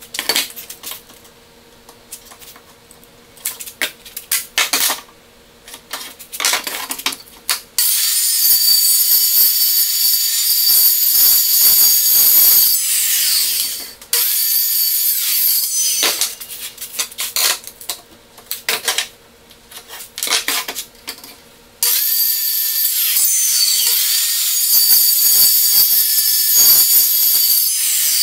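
Corded Ridgid circular saw cutting plywood in two cuts of about six seconds each, the first about a third of the way in and the second near the end, the blade whining down after each. Knocks and clicks of the saw and wood being handled come before and between the cuts.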